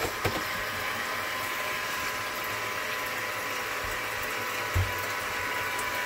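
Electric bilge pump running steadily, a constant hum over rushing water, pumping out water that leaks in around the transom seal. A brief low bump about five seconds in.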